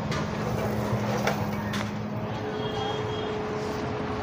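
Street traffic: a motor vehicle's engine running steadily, with a higher steady tone taking over about halfway and a couple of light clicks.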